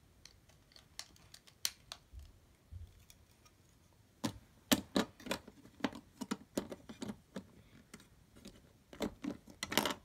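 Small plastic building bricks clicking and clattering as they are picked from a plastic tray and pressed onto a plastic baseplate: irregular sharp clicks, sparse at first and coming much more often from about four seconds in.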